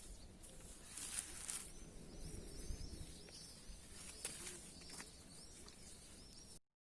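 Faint outdoor background with a small bird chirping over and over in short, quick arched calls; the sound cuts off suddenly near the end.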